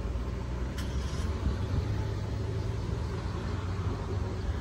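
Steady low rumble of distant city road traffic, with a couple of faint ticks about a second in.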